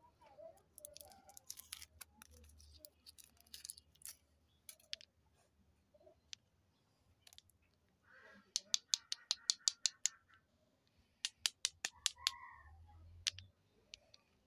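Foil wrappers of small chocolate balls crinkling as they are peeled off by hand, with faint crackles at first and two quick runs of sharp clicks in the second half.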